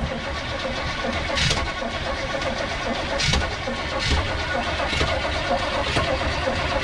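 Starter cranking the 1977 Chevrolet C10's small-block V8 steadily, with the throttle held to the floor, without the engine catching. The crank sounds lazy, which the crew puts down to ignition timing set way retarded.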